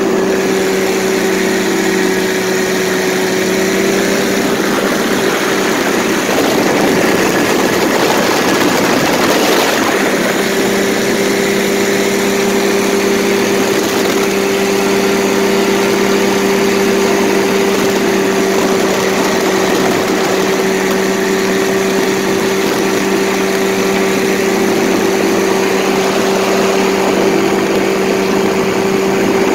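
Paramotor engine and propeller running at a steady pitch in flight, a constant drone over a rush of noise. From about seven to ten seconds in, a louder rush briefly covers the engine's tone.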